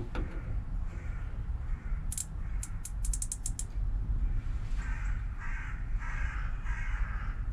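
A bird cawing: about five harsh calls in quick succession in the second half, over a steady low rumble. A fast run of sharp clicks comes a little before the middle.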